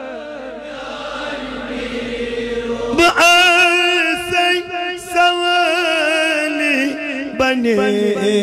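A devotional song sung by one voice in long, wavering held notes, with no instruments. The first phrase fades away, then a new line starts loudly about three seconds in.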